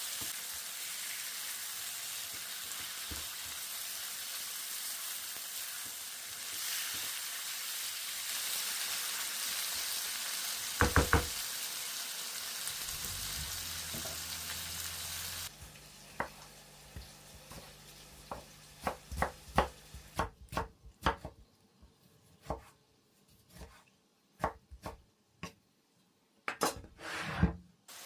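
Food frying in vegetable oil over high heat, a steady sizzle, with a few sharp utensil clicks about eleven seconds in. About halfway through the sizzle cuts off suddenly, and a run of irregular sharp knocks and taps follows.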